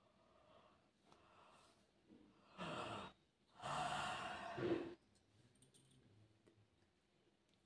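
A person yawning: a short breath in about two and a half seconds in, then a longer breathy exhale with a little voice in it, lasting about a second and ending just before the five-second mark.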